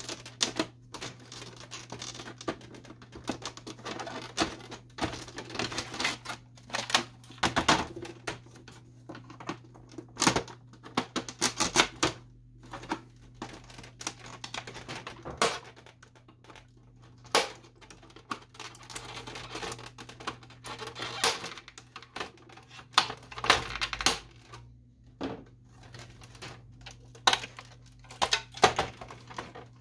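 Irregular plastic clicks and knocks from a Canon Pixma MG6220 printer's scanner unit and housing being handled, pressed and lifted off the printer body by hand.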